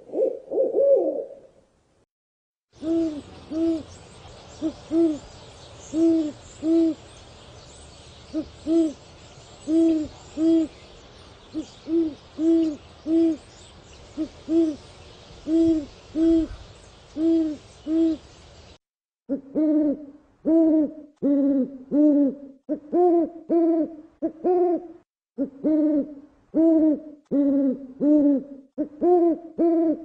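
Owls hooting in several spliced recordings. A quick run of notes comes first, then after a brief gap low hoots, mostly in pairs, over a light hiss. About two-thirds of the way through, a cleaner recording takes over with faster, wavering hoots, about two a second.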